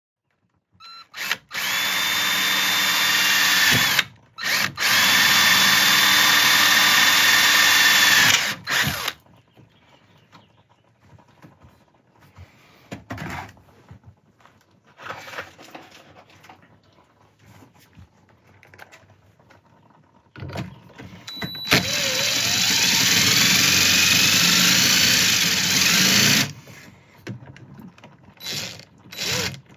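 Power drill running in three long runs of a few seconds each, with short blips between, driving screws to fix the crossbar to the screen door. In the last run its whine climbs steadily in pitch as the motor speeds up.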